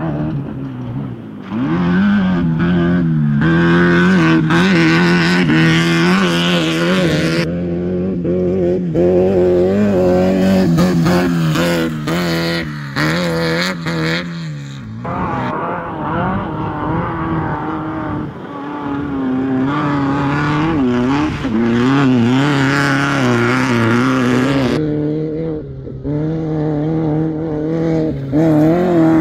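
Off-road race cars, among them VW Baja Bugs, running flat out past on a dirt course, one after another, their engines revving with a pitch that rises and falls, and a hiss of tyres and gravel over them. The sound changes abruptly a few times as one pass gives way to the next.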